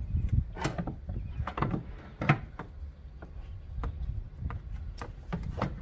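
Plastic cold-air-intake airbox knocking and scraping against the engine bay as it is pushed and wiggled into place: a string of irregular clunks and rubs, with a sharper knock about two seconds in.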